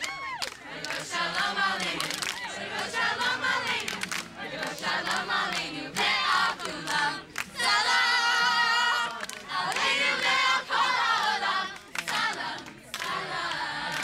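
A crowd of teenagers singing and shouting together, many voices at once, loudest in a stretch of held singing about eight seconds in.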